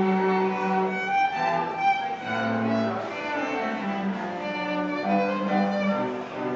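Small string ensemble of violins and cellos playing together in held, bowed notes, with a low cello note about two and a half seconds in.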